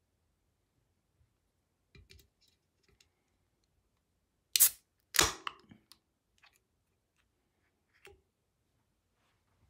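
Aluminium beer can (Asahi Super Dry) pulled open by its tab: a sharp crack as the seal breaks, then a second burst with a short hiss of escaping carbonation that dies away within half a second. There are faint clicks of fingers on the tab before and after.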